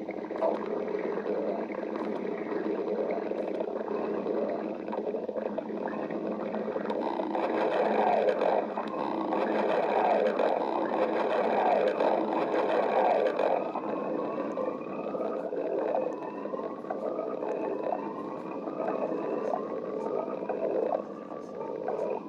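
Stomach growling: a long, continuous gurgling rumble with wavering pitch, louder in the middle, then a run of short rising squeals about once a second near the end.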